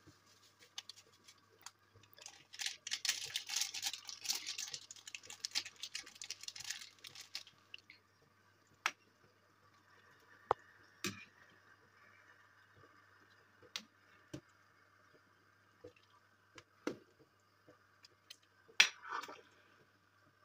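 Plastic stock-powder packet crinkling for a few seconds as the powder is shaken into a pot of soup, then scattered clicks and knocks of a metal ladle against the pot, the loudest near the end, over a faint steady hum.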